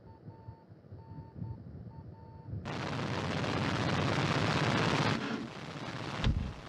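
Faint low rumble with several short beeps at one pitch, then about two and a half seconds in a loud rushing roar cuts in abruptly and holds, easing a little near the end, where a low thump sounds.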